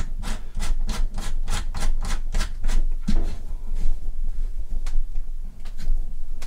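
Metal hose coupling being spun by hand onto a brass threaded fitting on a water-filter housing: a quick run of light clicks and scrapes, about four a second, thinning out to a few scattered ones after about three seconds.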